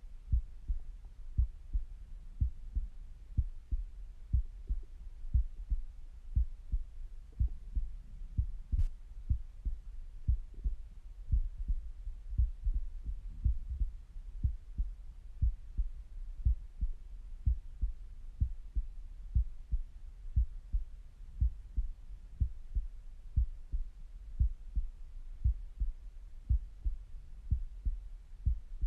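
Resting heartbeat heard through a stethoscope: a steady run of regular low lub-dub thumps.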